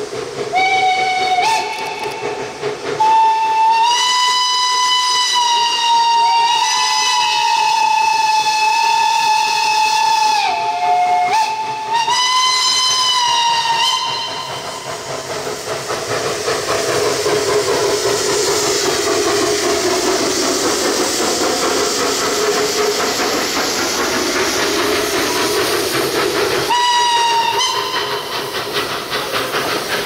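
Narrow-gauge forest-railway steam locomotive sounding its whistle in a string of blasts and long toots that waver and step in pitch for about the first half. Then comes a steady loud hiss of escaping steam, and one more short whistle blast near the end.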